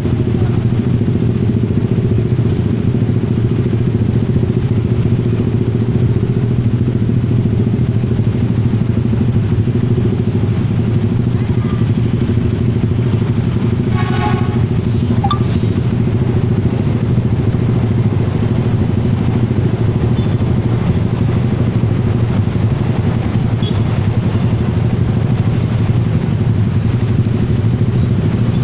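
Steady, unchanging low engine hum from motor vehicles at a level crossing. A brief pitched horn-like tone sounds about halfway through.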